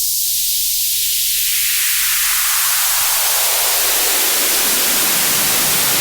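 White noise through a high-pass filter whose cutoff sweeps steadily downward, so the thin, high hiss gradually fills in with lower and lower frequencies and sounds fuller and deeper.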